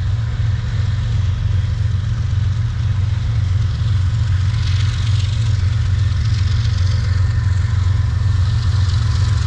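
Freight train cars rolling past with a steady low rumble; a fainter high hiss joins about halfway through.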